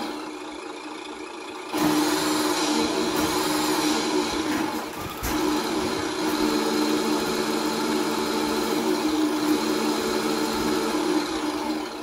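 Simulated diesel truck engine sound played through the speaker of an ESS One Plus sound module in an RC truck. It runs quietly for the first two seconds, then suddenly gets louder with a rise and fall in pitch. After a brief dip about five seconds in, it runs on steadily.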